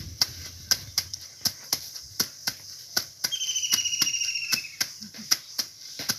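Wet laundry being scrubbed and slapped by hand on a stone washing slab at the water's edge, a quick, even run of wet slaps about three a second. An insect buzzes for a second or two about halfway through.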